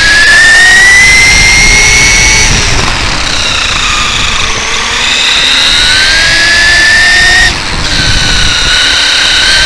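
Whine of a Traxxas E-Revo RC truck's 2200kv brushless motor and 23/54 pinion and spur gears as it drives, heard from a camera mounted on the truck. The pitch rises with speed, eases off about two and a half seconds in and builds again. Near the end it cuts off sharply as the throttle is let off, then picks up again. Rumble of the knobby tyres on asphalt runs underneath.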